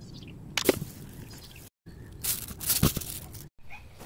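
Sped-up handling noises: a plastic bag crinkling and a few tool clicks, cut into short pieces with two sudden dropouts.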